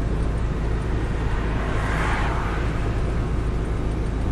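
Chevrolet Corvette Z06's V8 and road noise as the car cruises gently, a steady low drone. A brief rise of rushing noise comes about two seconds in.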